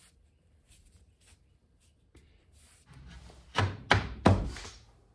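Three quick, sharp knocks about three and a half seconds in, roughly a third of a second apart, with only faint ticks before them.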